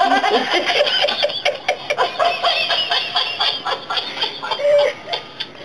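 Battery-powered laughing plush monkey toy laughing, a long unbroken run of rapid, evenly repeated laugh pulses.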